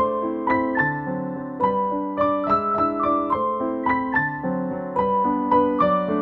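Background piano music: a melody of struck notes over chords, about two to three notes a second.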